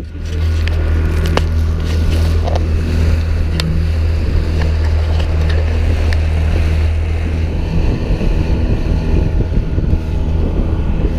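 A small fishing boat's motor running steadily at cruising speed, a low even drone over the rush of the wake and wind on the microphone. The engine drone fades into the water and wind noise near the end.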